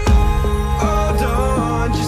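Pop song playing as background music, between sung lines, with a steady beat under sustained notes.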